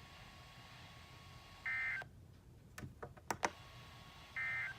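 Two short warbling data-tone bursts from a NOAA Weather Radio broadcast, about two and a half seconds apart: SAME digital code, most likely the end-of-message signal that closes a warning. A few sharp clicks come between the bursts.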